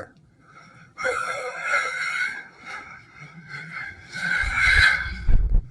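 A voice making two drawn-out raspy funny noises, each about a second and a half long, the second louder, with a low rumble under it near the end.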